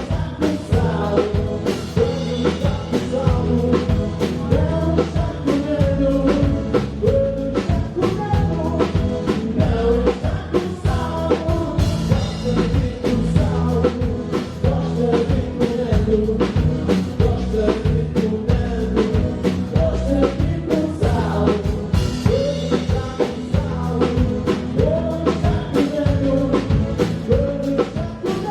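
A live band playing as heard from the stage: a drum kit keeping a steady beat under bass, with a sung melody over the top.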